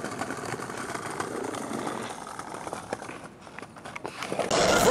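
Outdoor street ambience: a steady hum of distant traffic. It dips in level shortly before music starts near the end.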